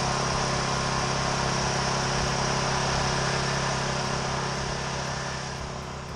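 Welding on a steel shed frame: a steady arc hiss over a steady engine-like hum, fading out near the end.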